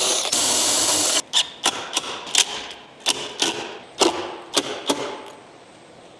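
A power drill running at speed for about a second with a high whine, then stopping, followed by a series of about ten sharp knocks of wood work, irregularly spaced, each with a short ringing tail.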